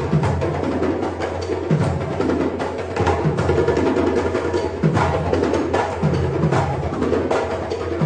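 Several hand drums played together in a fast, steady rhythm, mixing sharp slaps with deep bass tones.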